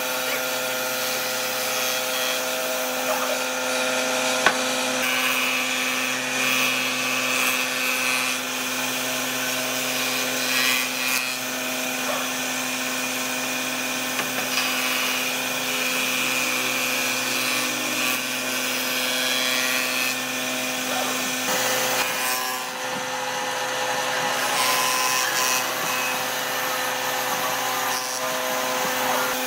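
Electric power tool running steadily as it works wood, its motor giving a constant hum under the rough noise of the cut. There is a single sharp click about four seconds in.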